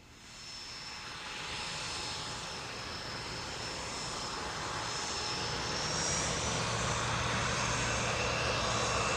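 An aircraft engine sound effect playing back: a steady engine noise with a thin high whine, getting louder over the first couple of seconds and then holding.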